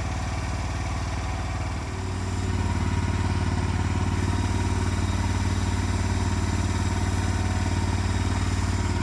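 SDLOOL SL36C mini skid steer's engine running steadily. About two seconds in, the note dips briefly, then picks up to a slightly louder, steady pitch.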